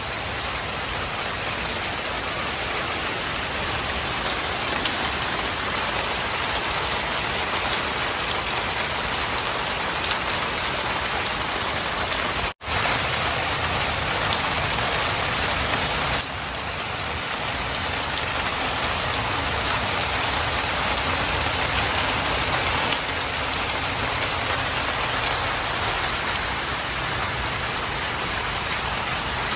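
Steady, heavy rain falling, an even hiss of drops on surfaces; the sound cuts out for an instant about twelve seconds in.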